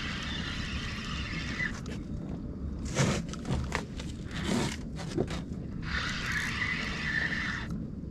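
Fishing reel being cranked in two spells of about two seconds each, a whirring with a steady tone, as a small sea bass is reeled in. Between the spells comes a run of sharp knocks and rattles.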